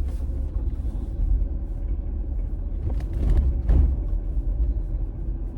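Vehicle driving slowly over a rough dirt track, heard from inside the cabin: a steady low rumble of tyres and suspension, with a couple of louder jolts a little past halfway.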